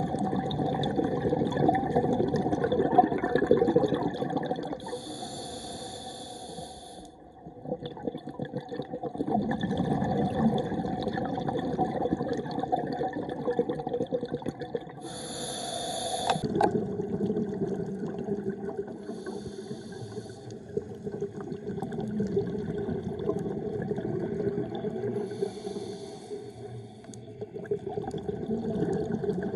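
Scuba diver breathing through a regulator underwater. Long bubbling, crackling exhales alternate with four short hissing inhales through the regulator in a regular breathing cycle.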